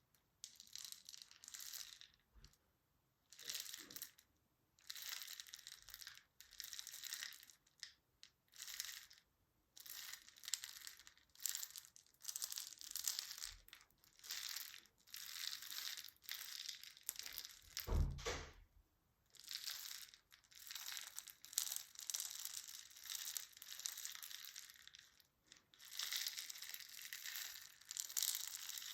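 Close-up crinkling and crushing noises in uneven bursts, one after another with short pauses, with a single low thump about 18 seconds in.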